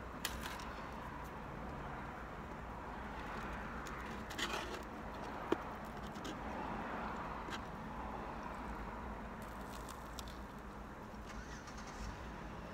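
Soft, scattered rustles and clicks as fried popcorn shrimp are picked out of a cardboard food box and eaten, with one sharp click about halfway through, over a steady low background hum.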